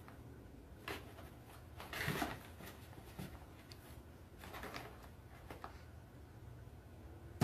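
Faint, scattered scratches and rustles of cardboard as a cat squirms and rolls about inside a cardboard box, over a low steady room hum.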